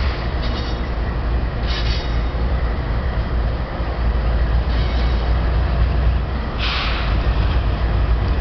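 Canadian Pacific diesel-electric locomotives running light past at close range: a steady, heavy low rumble of the diesels and wheels on rail. A few short, higher-pitched swells of noise rise over it, the strongest about two-thirds of the way through.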